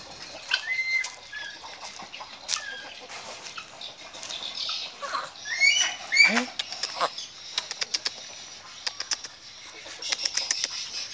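Bird calls: a few short chirps, then a quick run of rising whistled calls about six seconds in, followed by a string of sharp clicks and rustling.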